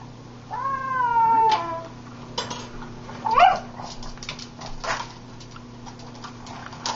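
Pug whining in excitement while waiting for her food: one long drawn-out whine that drops in pitch at its end, then a short high squeal about three and a half seconds in, the loudest sound. Light clicks and taps come between the cries.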